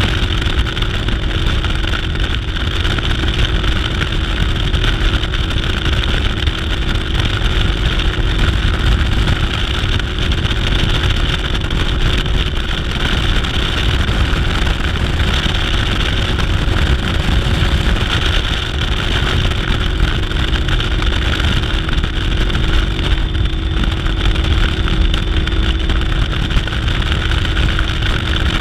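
Yamaha 250 SHO V6 four-stroke outboard driving a bass boat under way, its engine note holding steady, mixed with wind rushing over the microphone and water noise from the hull.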